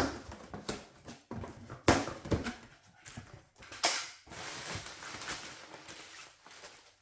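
Cardboard box and packaging being handled during unpacking: a few sharp knocks and rustles, with a longer rustle about four seconds in.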